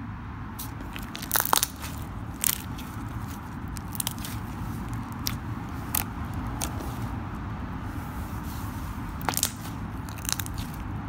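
Thick mint-green slime being poked, pressed and folded by fingers, giving scattered sharp pops and clicks, the loudest about one and a half seconds in and again near the end, over a steady low rumble.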